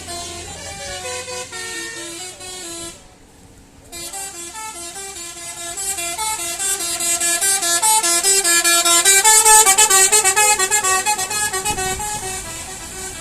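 Bus telolet horn, a multi-tone horn playing a tune of short stepping notes. It breaks off for about a second near the start, then plays a longer run that grows louder toward the middle and fades near the end.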